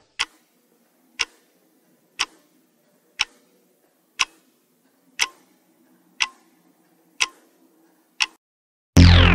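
Quiz countdown-timer sound effect ticking once a second, nine ticks in all. Near the end a loud sound effect with a falling pitch begins.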